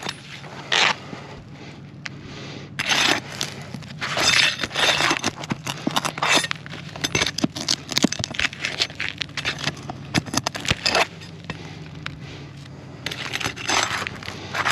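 Asphalt roof shingles being worked loose and nails pried out: irregular scraping and crackling, with sharp clicks and clinks of a metal tool.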